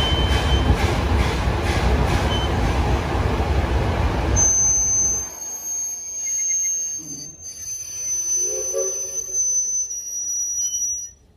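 Open passenger cars of a narrow-gauge excursion train rolling past close by: a loud, steady rumble of wheels on track that falls away sharply about four seconds in. It leaves a quieter passage with a thin, steady high squeal.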